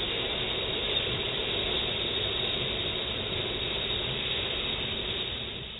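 A long, steady breathy exhalation, whispered rather than voiced: the subvocal "heee" of the Taoist triple warmer healing sound, held for about six seconds and fading out at the end.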